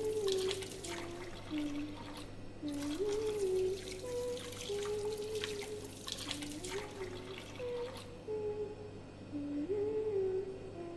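A woman humming a tune with her mouth closed while water runs from a kitchen tap and splashes into the sink. The water stops about eight seconds in and the humming carries on.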